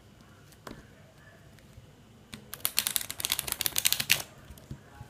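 A deck of playing cards being riffle-shuffled: a single light tap about a second in, then a rapid run of flicking clicks lasting under two seconds as the two halves of the deck riffle together.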